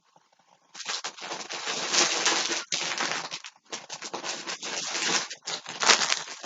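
Plastic yarn packaging crinkling and rustling as packs of yarn are handled, starting about a second in and going on with brief pauses.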